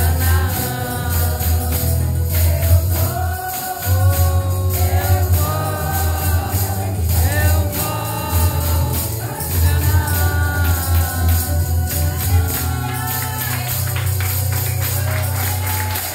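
Women's choir singing a gospel song in several voices over a heavy bass accompaniment, with a tambourine shaken in rhythm. The voices stop about three seconds before the end while the tambourine and accompaniment continue.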